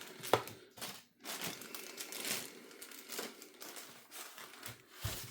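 Packaging crinkling and rustling as accessories are unpacked and handled, with one sharp click about a third of a second in.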